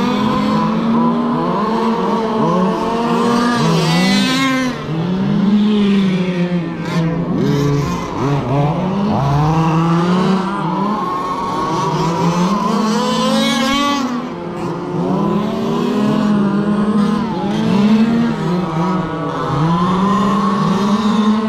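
Several radio-controlled race cars lapping together, their motors whining over one another and repeatedly revving up and dropping back through the turns.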